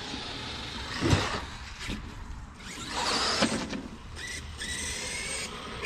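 Electric RC car running on grass: the motor whines up in two loud surges, about one and three seconds in, with a thinner steady whine near the end.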